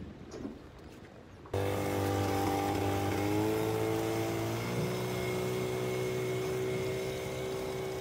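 A small motorboat's engine running steadily as the boat pulls away. It cuts in abruptly about a second and a half in, then its pitch drops slightly and settles, and it grows a little quieter near the end.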